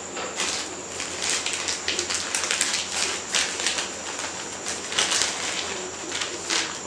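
A white packing wrapper around a camera lens crinkling and rustling as it is handled and unwrapped: a run of short, irregular crackles.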